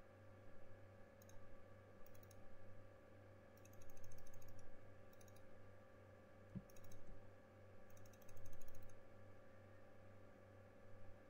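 Bursts of quick clicking from a computer mouse and keyboard, several rapid clicks at a time, over a steady low electrical hum.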